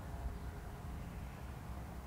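Wind buffeting the microphone: an uneven, gusting low rumble, with a faint steady hum of thin tones behind it.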